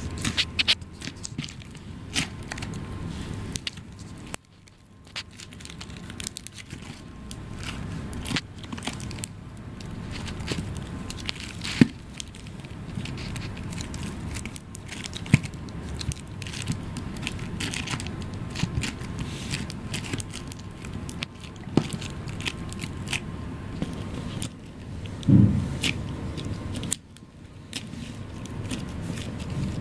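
Hands squeezing and stretching slime, making irregular crackles, pops and sticky clicks, with one louder low thump late on.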